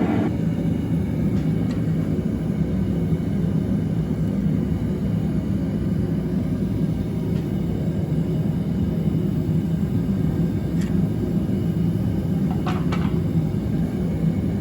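Forge running with a steady low rushing noise as a tong blank's bit heats in it, with a few faint clicks in the second half.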